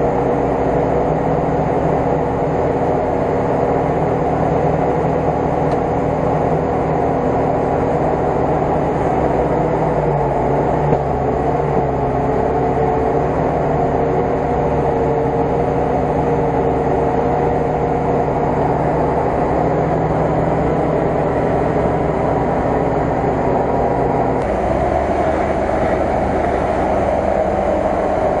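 A steady, unbroken motor drone with a held tone that wavers a little partway through, with no revving up or down.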